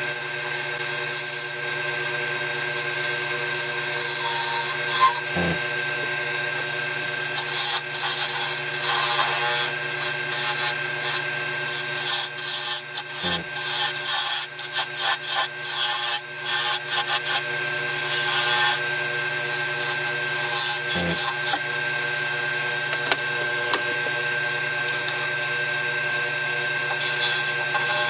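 Wood lathe running with a steady motor hum while a hand-held turning tool cuts into the spinning spalted beech, shaping a lid's finial. The cutting comes as irregular spurts of scraping, busiest through the middle of the stretch.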